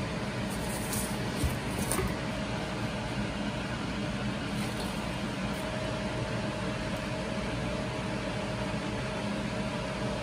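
Steady mechanical hum with a faint high whine running through it, like a fan or running appliance, with a couple of soft ticks in the first two seconds.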